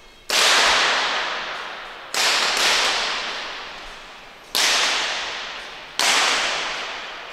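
Four .22 free pistol shots fired one after another at irregular intervals, each a sudden crack whose echo dies away slowly over about two seconds in a large, hangar-like hall.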